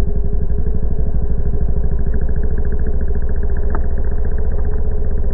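BMW F800GS parallel-twin motorcycle engine running under power, a rapid low pulsing with a steady drone and little high-frequency content.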